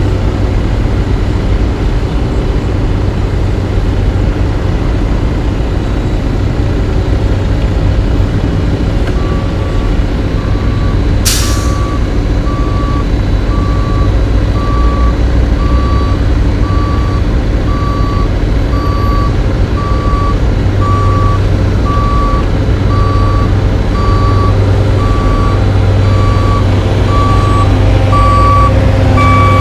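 Heavy diesel engine of an asphalt paver running steadily. About nine seconds in, a reversing alarm starts beeping at about one and a half beeps a second and keeps on, later joined by a second, higher beeper; a short sharp hiss comes a couple of seconds after the beeping starts.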